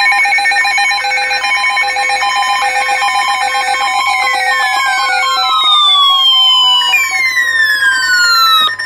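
Emergency Alert System tones: layered electronic beeps and warbling data bursts switching rapidly on and off, joined about halfway through by falling whistling tones, all cutting off abruptly just before the end.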